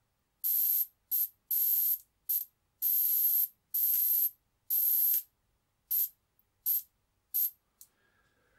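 Electric fly swatter's high-voltage circuit arcing across a spark gap of two screw heads, powered by touching the supply wire to the adapter plug. It sounds as about a dozen hissing spark bursts, some brief and some over half a second long, with silence between them, stopping shortly before the end.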